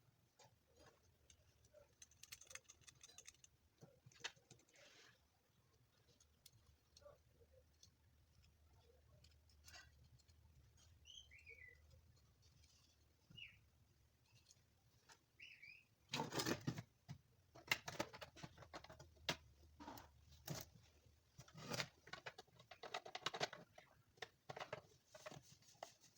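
Quiet scattered clicks, taps and rustles of objects being handled, growing busier and louder in the last ten seconds, with a few faint bird chirps in the background about halfway through.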